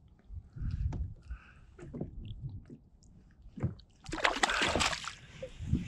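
A hooked perch splashing at the surface beside a kayak as it is landed, with a short burst of splashing about four seconds in, after a few small knocks and splashes of water.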